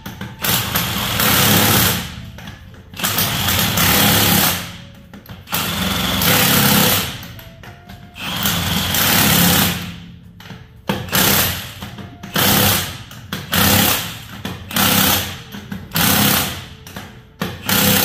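Impact wrench spinning lug nuts onto a wheel being mounted, in about a dozen short bursts of half a second to a second and a half with pauses between.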